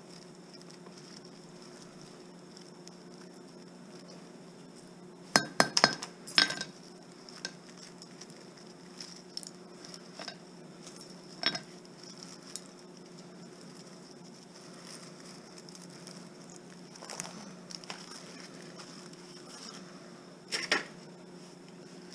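Small hard parts from a TV being taken apart, clinking and clattering as they are handled and set down. There is a quick cluster of clinks about five to six and a half seconds in, then single clinks now and then. A faint steady hum runs underneath.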